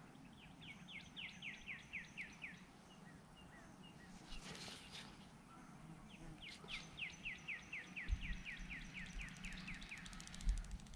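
A songbird singing twice, each song a quick run of more than a dozen down-slurred whistled notes lasting two to three seconds. A brief rustle comes midway, and low thumps near the end.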